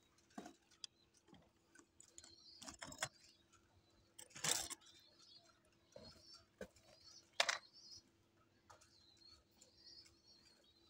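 Pigeons pecking grain off hard bare ground: scattered soft clicks and taps, quiet overall, with one louder tap a little after four seconds and another at about seven and a half.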